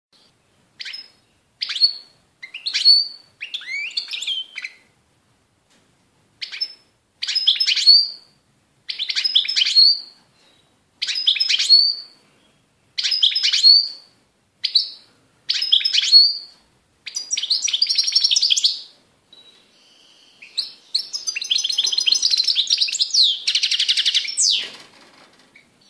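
European goldfinch singing: short twittering phrases repeated every second or two, then a longer run of rapid twittering near the end.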